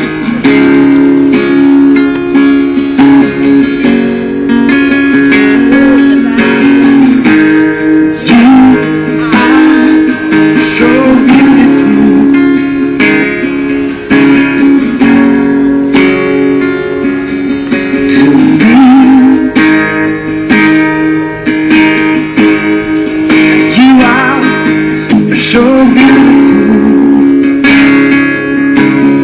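Acoustic guitar strummed steadily, with a man singing over it in places.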